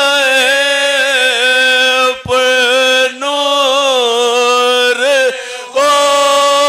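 Soz khwani, a Shia Muharram lament sung by men's voices without instruments: a lead reciter with a chorus of men holding long, drawn-out notes together. The singing breaks off briefly about two seconds in and again a little after five seconds, then resumes on a held note.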